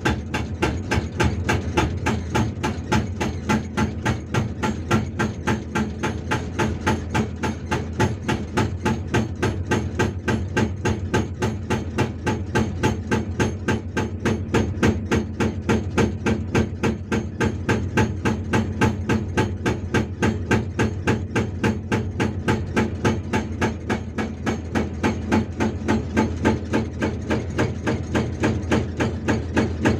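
Hydraulic rock breaker on a Hyundai R480LC-9S excavator hammering rock in a steady rhythm of about two to three blows a second, with the excavator's engine running underneath. The chisel is pressed firmly on the rock, not floating or firing blank, which the operator warns can damage the breaker's pistons.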